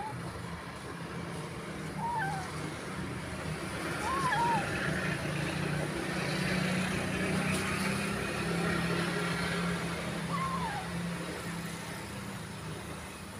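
A kitten giving a few short, high mews, a few seconds apart, over a steady low traffic hum.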